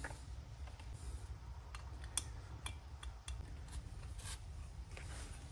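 Faint, scattered small clicks of screws being handled and threaded by hand into a jet pump's nose cone, over a low steady hum.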